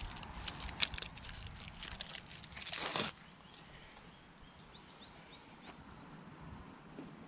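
Clicks, taps and rustling of plastic and metal parts as a replacement car door handle is worked into the door, ending in a louder scrape about three seconds in. After that it goes quieter, with a few faint bird chirps.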